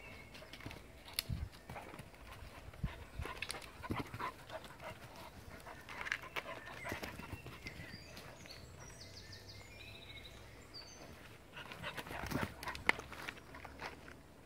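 English springer spaniels panting and moving about in woodland undergrowth, with scattered crackles and rustles of twigs and leaves underfoot and a few sharper knocks.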